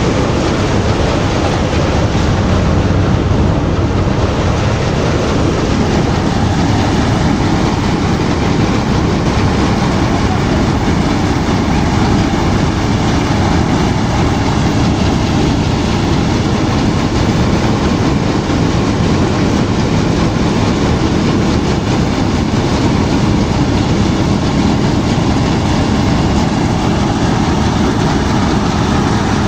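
Wheat threshing machine running steadily at work: a loud, continuous mechanical din with no let-up.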